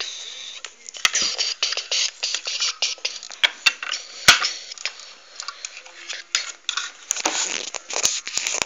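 Plastic toy figures and a plastic playset handled close to the microphone: a run of sharp clicks, knocks and scrapes, the loudest about four seconds in.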